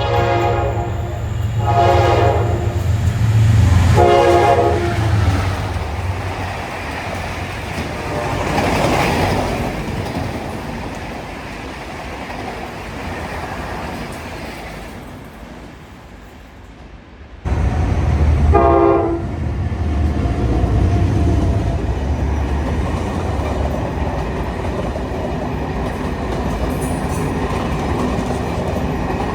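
Train horn sounding three short blasts in the first few seconds over the low rumble of a locomotive and its passing train. The train noise fades away, then after an abrupt change another horn blast comes, followed by the steady running of a train.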